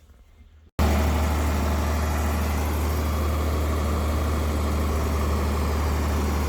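John Deere 4020 tractor engine running steadily with a strong low hum, cutting in suddenly just under a second in after near quiet.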